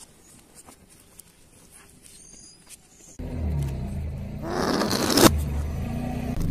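Faint crackles at first, then a car engine running close by, and about five seconds in a rush of air from a whoopee cushion squashed under the car's tyre, swelling and cutting off sharply as if played in reverse.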